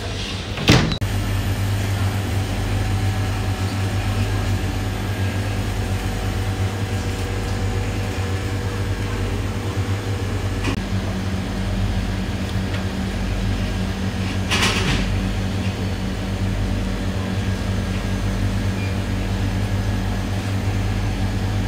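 Steady low electrical hum of a convenience store's freezers and refrigerated display cases. There is a sharp knock about a second in and a brief rustle in the middle.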